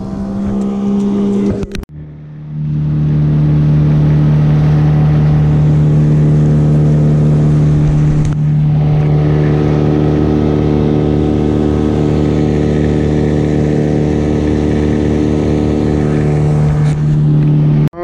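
Boat motor running at a steady speed with a steady droning pitch, in a few spliced clips with abrupt cuts between them.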